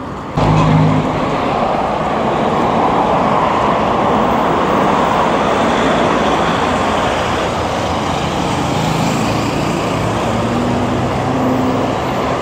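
Steady street traffic noise: cars passing on a city road, a continuous rush of tyres and engines, with the hum of individual passing vehicles rising out of it about half a second in and again near the end.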